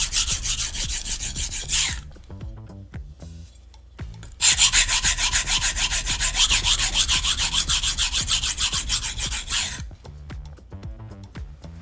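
VG10 nakiri blade ground back and forth on a coarse sharpening stone in quick, even rasping strokes, stopping about two seconds in and starting again about two seconds later for another five or so seconds. This is the coarse stage that reshapes the edge bevel and grinds out chips in the edge. Faint background music underneath.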